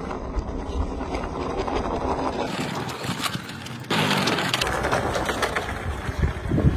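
Wooden remote-controlled model pickup truck rolling over rough concrete, its wheels crunching and clattering. The sound jumps louder about four seconds in.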